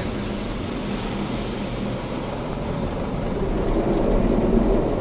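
Automatic car wash running over the car, heard from inside the cabin: rotating brushes and water beating on the body and windows make a steady rushing rumble that swells about three and a half seconds in.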